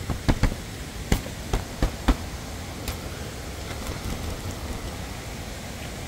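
A hand tapping and brushing the damp fabric of a tent flysheet, a quick run of sharp taps in the first three seconds, over a steady rushing hiss.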